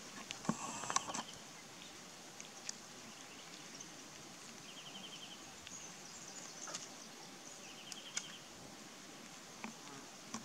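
Quiet outdoor ambience: an insect chirps in short, rapid trills every few seconds over a faint high hiss. A few small knocks and rustles come about a second in.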